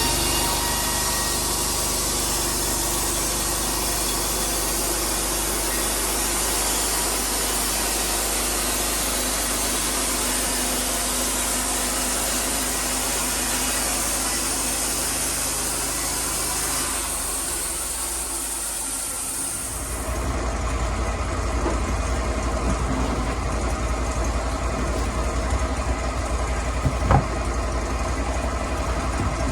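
Sawmill engine running steadily while sawing logs, with a high hiss over it. About twenty seconds in, the hiss stops abruptly and a deeper engine rumble takes over.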